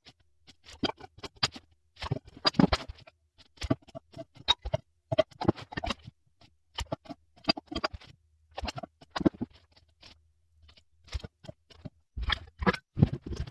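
Irregular knocks and clicks, a few a second with short pauses, of wooden 4x4 legs and hand tools being handled and set down on a wooden workbench. Near the end, denser clicks and rattles as a circular saw's base plate is adjusted.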